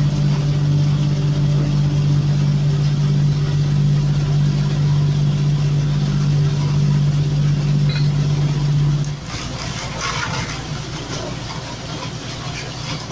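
Small fishing trawler's engine running with a loud, steady hum. About nine seconds in, the hum stops and a quieter, rougher engine-and-water noise carries on.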